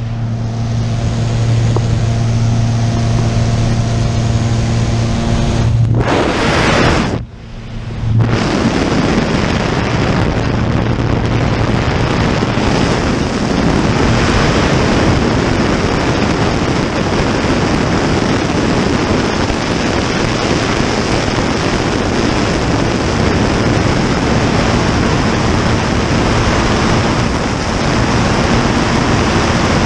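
Wind rushing in at the open door of a small single-engine high-wing plane in flight, buffeting the microphone, over the steady drone of the plane's engine. The engine hum is clearest in the first few seconds; about seven seconds in the sound dips briefly before the wind noise comes back.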